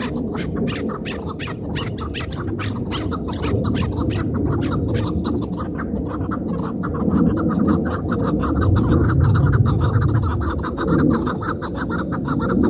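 Chukar partridge calling: a fast, even run of repeated notes, about five a second, over a low steady rumble.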